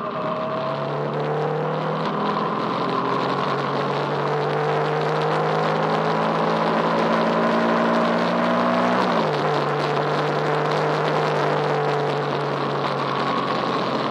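Engines of racing vehicles running on the circuit at high revs, their pitch climbing slowly and then dropping sharply about nine seconds in.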